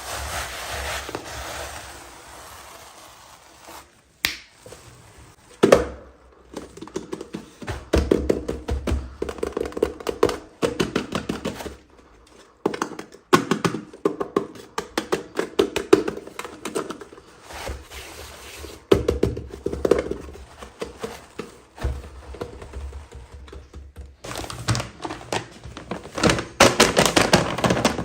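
Plastic toy packaging being handled and opened: irregular taps, thunks and crinkly clicks, in busy clusters with short pauses between.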